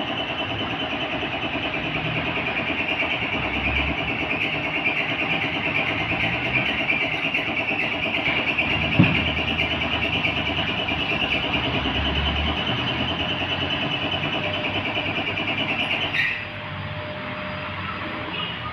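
Pressure washer running steadily, its motor and spray making a dense hiss-like whine, with one sharp click about nine seconds in; it cuts off abruptly about sixteen seconds in.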